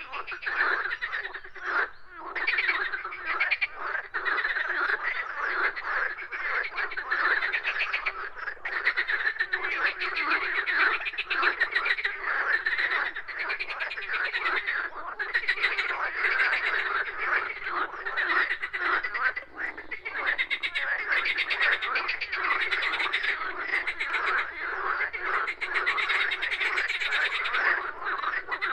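A chorus of many frogs croaking together, a dense, unbroken mass of rapid pulsing calls.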